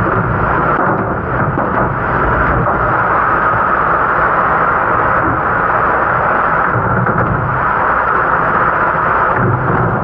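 Steady loud rush of a commercial dishwashing station, water spraying and the dish machine running, with a few low knocks as a metal sheet pan and a dish rack are handled.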